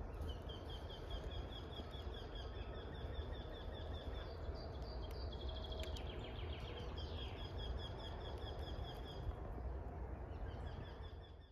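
Wild songbirds singing, in strings of short, quickly repeated high notes, over a steady low rumble. The sound cuts off abruptly at the end.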